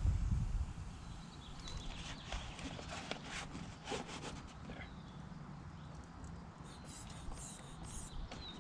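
Scattered clicks, taps and light knocks of locksmith lockout tools working at a car door held open by an air wedge, with a few faint squeaks near the end.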